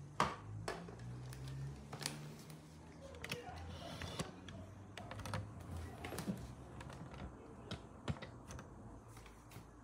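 Faint, irregular clicks and scratches of a cat shifting about and pawing inside a cardboard box.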